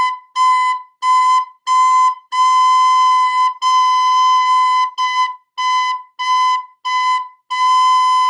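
Plastic soprano recorder playing the note B over and over, each note started with a tongued "t": four short notes, two long held notes, four more short notes, then a long note held near the end.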